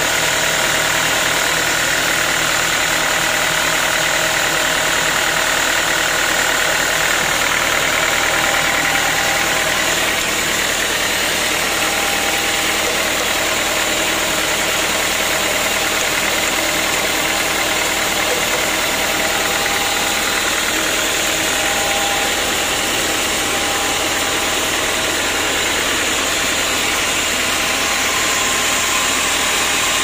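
Sawmill band saws running steadily while teak wood is cut: a constant, loud machine drone with no distinct events.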